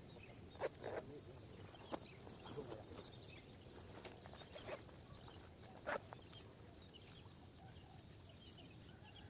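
Quiet outdoor background with a steady high hiss and a few scattered clicks and knocks, the loudest about six seconds in.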